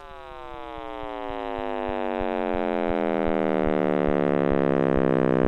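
Electronic space-sound sonification: a dense cluster of tones all gliding slowly downward together like a falling siren, growing steadily louder, over a faint low tick about three times a second.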